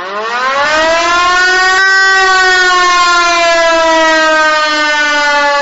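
Air-raid siren sounding an alert: it winds up in pitch over about two seconds, then holds a steady wail that sags slightly, with a brief click about two seconds in.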